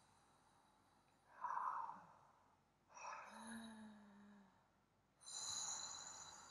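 A woman breathing deeply through the mouth in the 'charged breath' of a breathwork session: three long breaths about two seconds apart, the middle one carrying a short low voiced tone.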